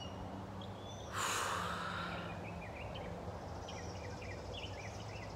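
A woman's long, breathy sigh about a second in, followed by scattered small bird chirps.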